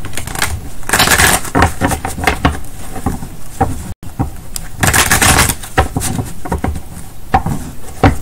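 A tarot deck being shuffled by hand: two longer rushes of cards sliding together, about one second and about five seconds in, between quick taps and clicks of the cards being squared.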